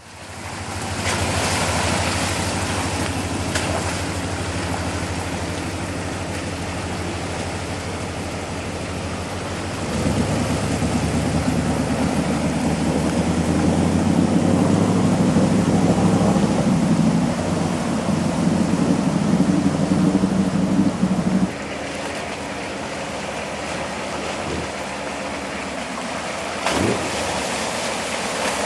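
Hummer H1 engine running as the truck drives off-road, under a steady rushing hiss. The engine gets louder about ten seconds in and drops back suddenly about two-thirds of the way through.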